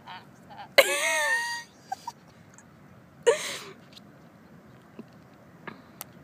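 A person's wordless drawn-out moan about a second in, its pitch rising then falling, and a shorter one around three seconds in; a single sharp click near the end.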